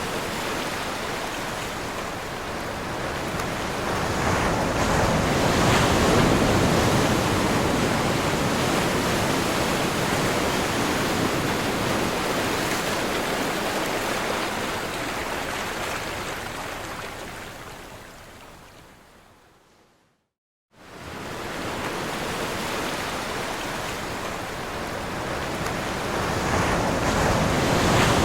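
Ocean waves breaking on a shore: a continuous wash of surf that swells and eases. About twenty seconds in it fades to silence for under a second, then the surf comes back in.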